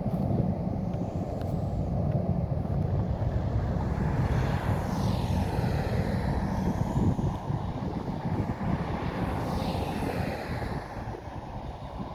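Boeing 747's four jet engines at takeoff power: a steady deep rumble, with higher whining tones that sweep down and back up twice as the jet goes by.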